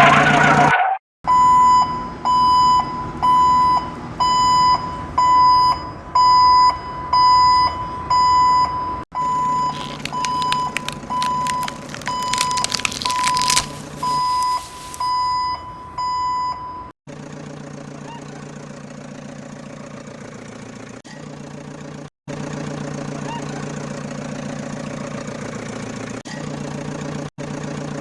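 Vehicle reversing alarm beeping about once a second over a running engine, with a stretch of rattling clatter partway through. The beeping stops about two-thirds of the way in, leaving the engine idling steadily.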